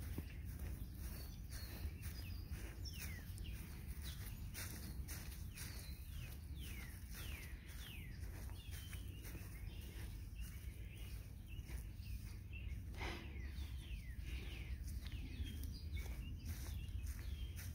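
Outdoor ambience with birds calling in short, repeated downward-sliding whistles over a low steady rumble, with frequent soft clicks throughout.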